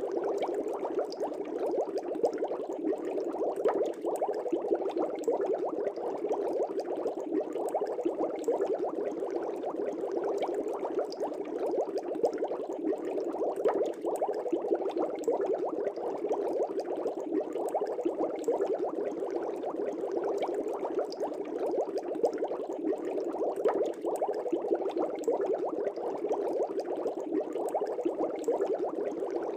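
Air bubbling steadily in an aquarium, a dense even churn of bubbles rising through the water with small pops over it.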